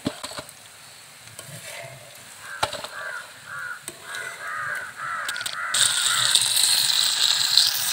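A crow cawing over and over, about three caws a second; then, about six seconds in, loud sizzling of hot oil as masala-coated snakehead murrel fish slices fry in the pan.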